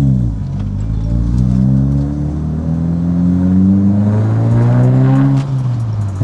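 2022 Subaru WRX's turbocharged 2.4-litre flat-four, fitted with a titanium intake, accelerating under load as heard inside the cabin. A short blip at the start, then the engine note climbs steadily for about four seconds before falling away near the end.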